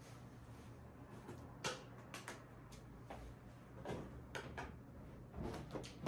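Scattered light taps and thuds of a cat at play chasing a wand toy, about a dozen short knocks spread across a few seconds, with a quick cluster near the end as the cat leaps onto the bed.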